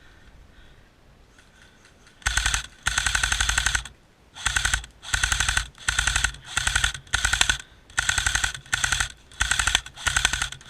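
Airsoft rifle firing on full auto in a string of about a dozen short, loud bursts, each a rapid rattle of shots, starting about two seconds in.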